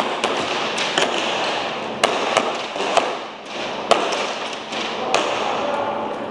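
Airsoft gunfire: a string of sharp, unevenly spaced pops and BB hits, about eight in a few seconds, over a steady background hiss.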